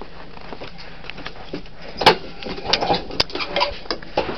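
A few sharp clicks and rattling knocks from handling a push lawn mower at its handle, over a low steady hiss; the first comes about two seconds in, with a cluster about a second later.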